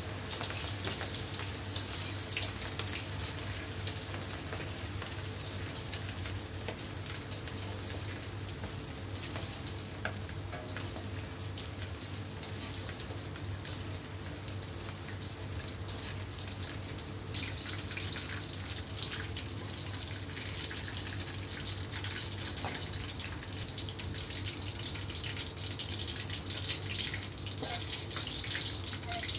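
Breaded squid rings deep-frying in hot oil in a wok: a steady sizzle thick with small crackles and pops, turning brighter a little past halfway. A steady low hum runs underneath.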